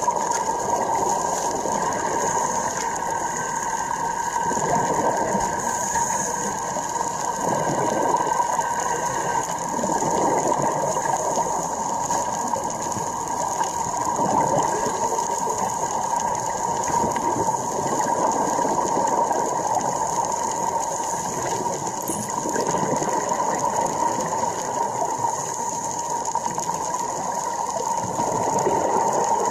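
Underwater recording on a dive: a steady high whine over a rushing noise that swells and fades every few seconds.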